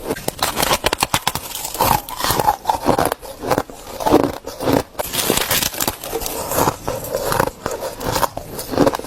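Close-up crunching of brittle humidifier ice being bitten and chewed, a dense run of irregular crackles and snaps with a bite every second or so.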